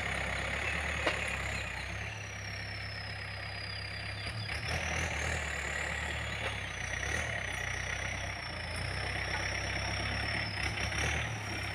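Yanmar 514T tractor's diesel engine running steadily under load as it pulls a disc plough through the soil. A faint high whine wavers slowly up and down in pitch over it.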